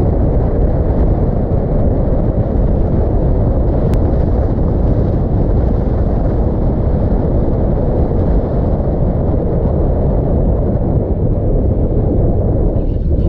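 Wind buffeting a camera microphone mounted outside a moving car: a loud, steady rumble, with road noise beneath it.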